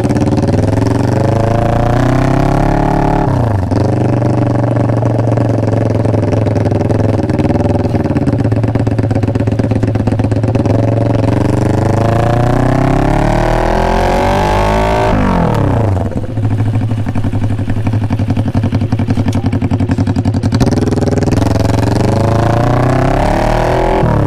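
Kawasaki Ninja 400 RR inline-four engine breathing through an SC Project exhaust, accelerating under way. Its pitch climbs, then drops sharply about three and a half seconds in, again around fifteen seconds, and just before the end, as it changes gear.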